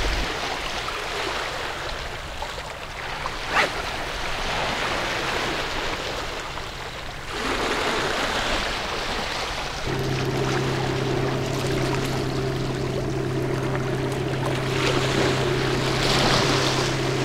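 Small waves washing and lapping against rocks, with wind noise. From about ten seconds in, a steady low drone joins and holds at one pitch.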